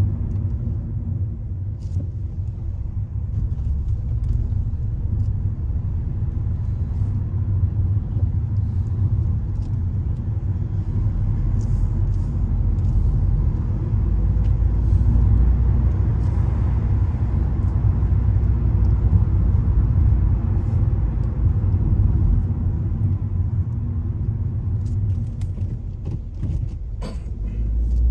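Car driving on city streets, heard from inside the cabin: a steady low rumble of engine and tyre noise that swells a little midway, with a few light clicks near the end.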